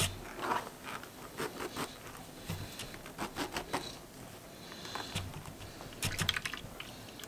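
Mesh nut-milk bag being handled, twisted shut and lifted out of a jug of almond milk: soft irregular rustling and crinkling, with a quick run of small crackles about six seconds in.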